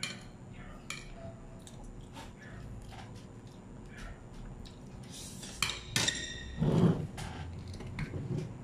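Close-miked eating at a table: a fork and spoon clinking and scraping against ceramic plates in scattered short clicks, sharper around six seconds in. A louder, dull noise follows about seven seconds in.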